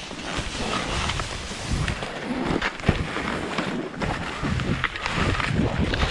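Skis scraping and chattering over firm snow through a run of short, quick turns, with wind rumbling on the head-mounted camera's microphone.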